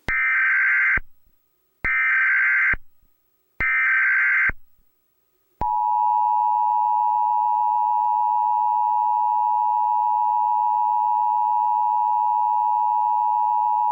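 Emergency Alert System tones: three one-second bursts of digital header data tones with short gaps, then the steady two-tone attention signal, starting about five and a half seconds in and holding for about eight seconds.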